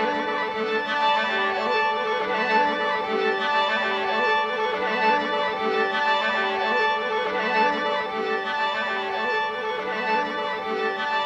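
Live solo violin with electronic effects: layered bowed lines playing a short repeating figure over a steady low held note.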